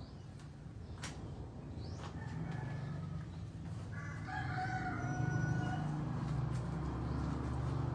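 A rooster crowing once, a held call lasting a couple of seconds from about halfway through, over a steady low rumble.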